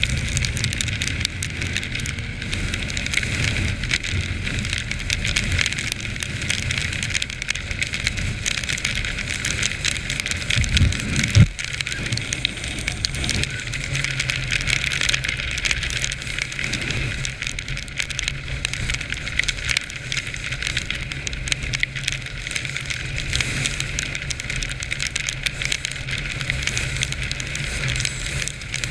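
Quad bike engine running steadily as it rides over snow, under heavy crackling wind buffeting on the mounted camera's microphone. About eleven seconds in there is a brief rise and a single loud knock, the loudest moment.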